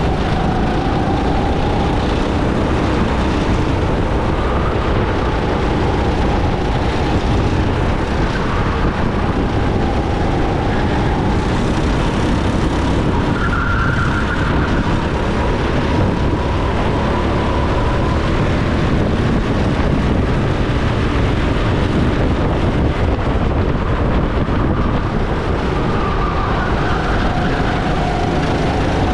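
Go-kart engine running hard at race speed, its whine slowly rising and falling in pitch as it accelerates and slows through the track's corners, under a steady rush of wind and road noise.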